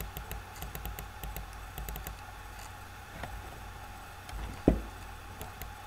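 Faint clicks of a stylus writing on a pen tablet over a low steady hum, with one dull thump a little before the end.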